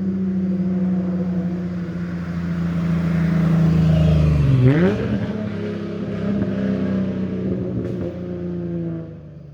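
1985 Toyota Cressida exhaust, through OBX headers and a 2.5-inch pipe, with the engine speed slowly sagging. About five seconds in there is a quick sharp rise in revs like a downshift. The engine then runs on steadily and its pitch drifts down near the end as the car coasts.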